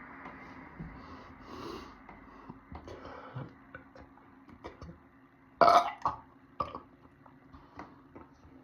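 A man burping from a belly full of chugged carbonated soda (Pepsi Zero): one short, loud burp a little past halfway, with quieter throat sounds and small clicks around it, over a steady low hum.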